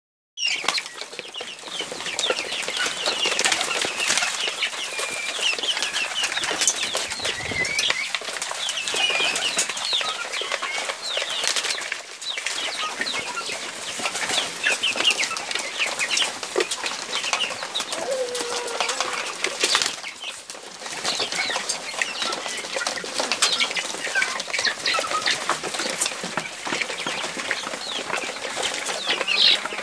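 A flock of kienyeji chickens and pigeons calling: a dense run of short, high chirps and clucks, with scattered sharp clicks and one lower call about two-thirds of the way through.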